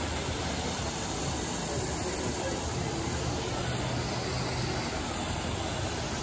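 Steady rush of falling and splashing water from a pool fountain, with water spouting from statues and a small waterfall pouring over a stone wall.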